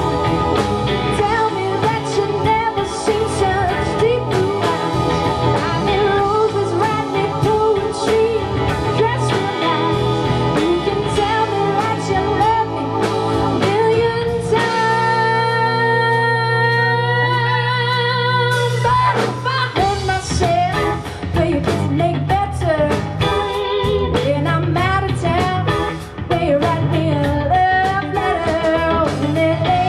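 Live band playing a song: a woman singing over acoustic and electric guitars and drums. About halfway through, the drums drop out for about four seconds while one long note is held, then the full band comes back in.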